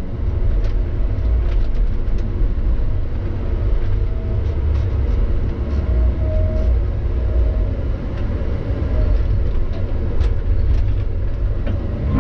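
A Tigercat log loader's diesel engine and hydraulics working under load, heard from inside the cab as a steady low rumble while the boom and grapple swing logs onto a truck. A few faint brief whines come in around the middle, and there are scattered light clicks.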